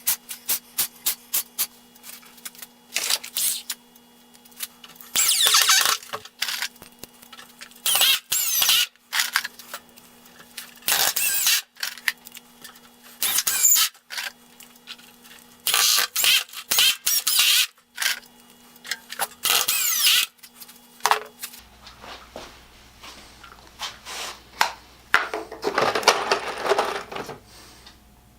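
Power drill running in short bursts of about a second each, boring holes or driving screws into a wooden tool box base, with knocks and clicks of handling between bursts.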